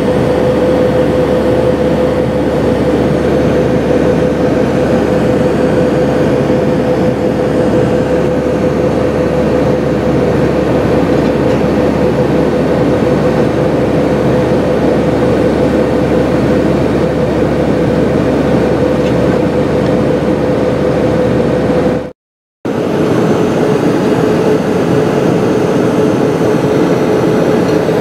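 Airbus A320 cabin noise in cruise: a steady roar of engines and airflow with a steady mid-pitched hum running through it. The sound cuts out for about half a second some 22 seconds in, and afterwards the hum is slightly lower in pitch.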